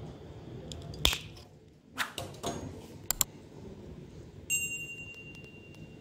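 A few sharp clicks and snips from a crimping tool's cutter trimming the ends of the network cable wires, the loudest about a second in. Near the end comes a short, bright ringing chime, a subscribe-bell sound effect.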